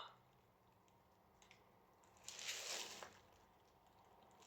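Near silence: room tone, with one faint, soft noise lasting under a second a little past the middle.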